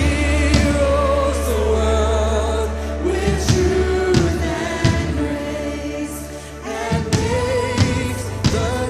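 Live church worship music: several voices singing together with vibrato over a steady bass and drum hits.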